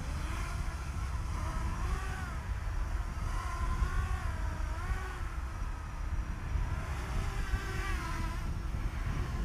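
Pirx 7 seven-inch quadcopter's four Brother Hobby Avenger 2507 1700 kV brushless motors spinning Gemfan 7-inch props, taking off and hovering. The motor whine rises and falls in pitch as the throttle is worked, over a steady low rumble.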